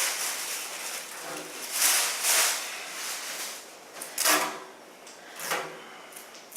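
Handling noises as a new microwave and its packaging are shifted about: two short rustling, scraping bursts about two seconds in, then a couple of brief voice sounds.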